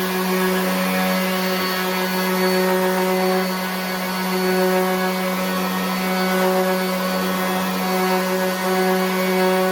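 RIDGID 18-volt cordless 5-inch random orbit sander running steadily on rough wood, a constant buzzing hum whose loudness swells a little now and then.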